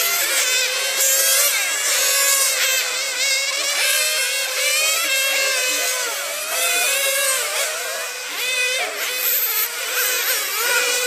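Several radio-controlled racing cars' motors whining at high pitch, overlapping, each one's pitch rising and falling over and over as the cars accelerate and brake around the track.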